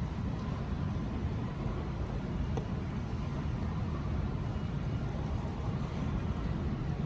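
Steady low background rumble, with one faint tick about two and a half seconds in.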